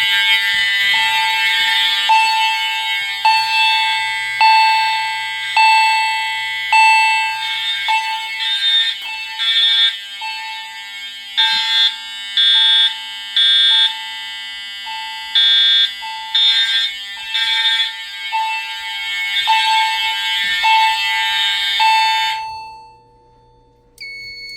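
EST fire alarm chime striking a ringing tone about once a second over the loud buzzing of EST Pre-Integrity horn strobes, the horns pulsing on and off for a stretch midway. All of it cuts off about 22 seconds in, and near the end a steady high electronic tone begins.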